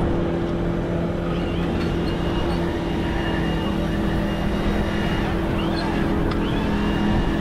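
Superbike engines running on a race starting grid, a continuous drone whose lower note steps up in pitch about three seconds in.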